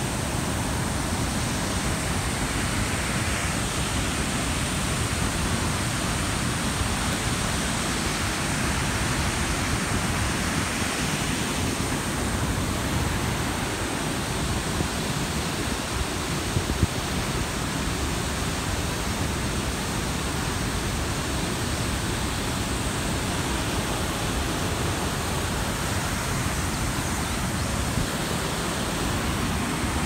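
Fast-flowing river water rushing over rapids: a steady, even rushing noise.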